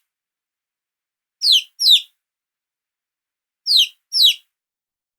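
Baby chick peeping: four short, high chirps, each falling in pitch, in two pairs with silence between.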